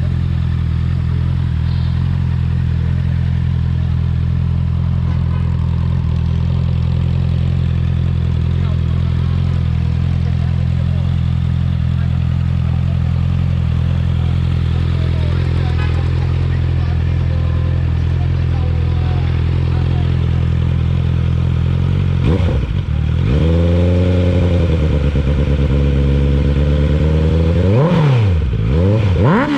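Honda CBR650R's inline-four engine through a modified stock exhaust, idling steadily. About three-quarters of the way through it is revved up and held with the revs sagging and climbing, then blipped sharply two or three times near the end.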